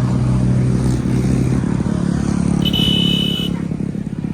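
Large tour-bus diesel engine running with a steady low hum. About two and a half seconds in, a short high beep sounds once, just under a second.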